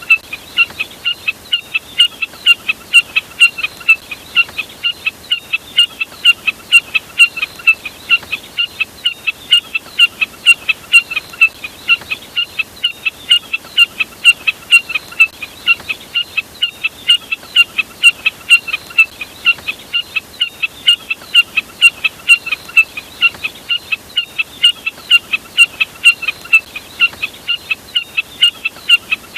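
Jack snipe calling: a steady, rapid series of short, sharp notes, about two to three a second.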